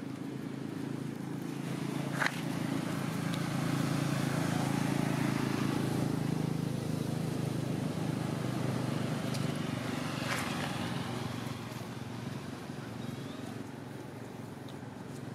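A motor vehicle's engine running, a steady low hum that grows louder over the first few seconds and then slowly fades. Two short sharp sounds stand out, about two seconds in and about ten seconds in.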